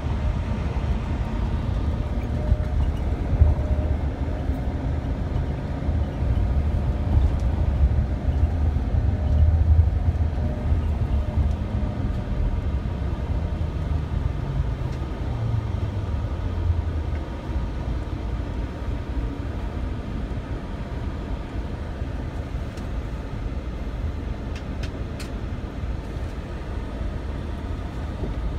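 Motorcoach cabin noise: the diesel engine rumbles under the floor along with road noise. About halfway through the engine note falls as the coach slows, leaving a lower, steadier hum.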